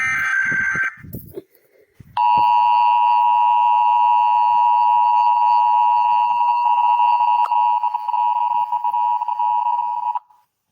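Emergency Alert System test: the last burst of the digital SAME header, modem-like data tones lasting about a second, then after a short gap the EAS two-tone attention signal (853 Hz and 960 Hz tones sounded together), held steady for about eight seconds before it cuts off.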